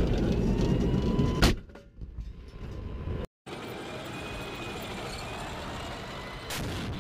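M1 Abrams tank's gas-turbine engine: a loud low rumble with one sharp bang about one and a half seconds in. After a short break, the tank drives past with a steadier rumble and a faint high whine that bends slightly in pitch.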